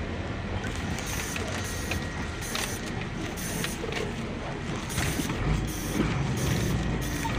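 Cab interior of a HOWO dump truck driving on a rough dirt track: a steady low diesel engine drone under frequent clicks and rattles from the cab. The engine sound swells a little about five seconds in.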